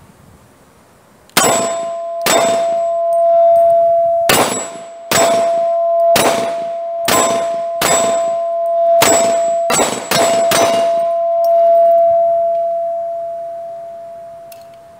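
Taurus TH40C pistol in .40 S&W fired about eleven times over some nine seconds, shots roughly a second or less apart. A steady metallic ring hangs under the shots, most likely from a struck steel silhouette target, and fades out over a few seconds after the last shot.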